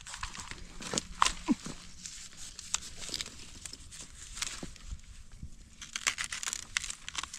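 Dry bamboo leaves and papery shoot sheaths rustling and crackling as gloved hands push into a clump of wild monastery bamboo to pull out a shoot, with scattered sharp cracks and snaps of dry stalks.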